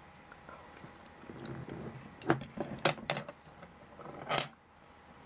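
Kitchen utensils (a knife, a metal spoon and chopsticks) being handled and set down on a plastic cutting board: a few sharp clicks and knocks about two to three seconds in, then a short scraping rustle near the end.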